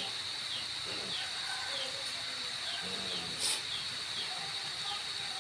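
Insects droning steadily at a high pitch, with short falling chirps repeating about every half second over the drone and one brief click midway.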